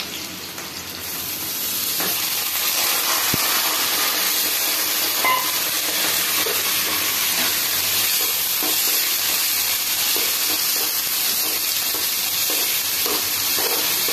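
Chopped onions frying in hot oil in a metal kadhai: a steady sizzle that swells about a second in as the rest of the onions go into the oil. A ladle scrapes and clicks against the pan as they are stirred.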